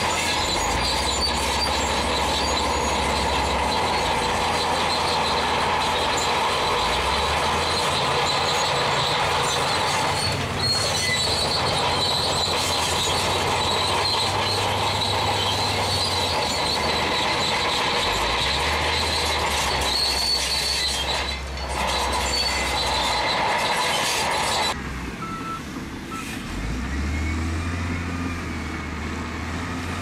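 Heavy earthmoving machinery working stone: a diesel engine running under a continuous metallic grinding and squealing, which cuts off abruptly near the end and leaves the engine alone.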